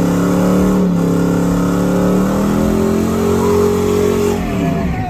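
Chevrolet Silverado pickup's engine held at high revs while the rear tyres spin in a burnout. The revs drop away near the end.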